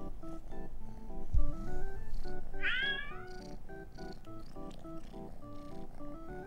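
A cat meows once about two and a half seconds in, a short call falling in pitch, and a second meow begins at the very end. Background music with a stepping melody runs throughout, and a low thump comes about a second and a half in.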